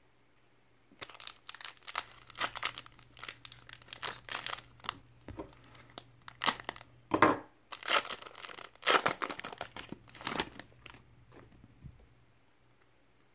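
Foil trading-card pack wrapper being opened and crinkled by hand: a run of crackling rustles from about a second in, loudest past the middle, dying away near the end as the cards come out.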